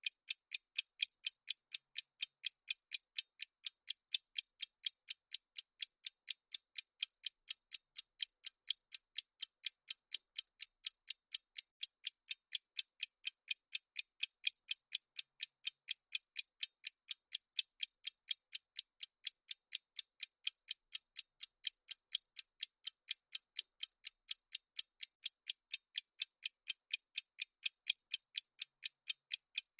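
Clock-ticking sound effect marking the running countdown: light, evenly spaced ticks, a few per second, at a steady pace.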